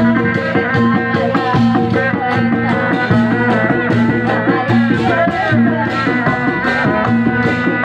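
Loud Sundanese bangreng music with dog dog drums: low pitched drum notes repeat in a steady pattern, under a fast even rattle of percussion and a sustained melody line.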